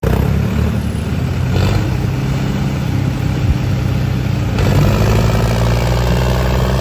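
Diesel engines of two farm tractors running steadily at high throttle while pulling against each other in a tug-of-war, labouring under heavy load.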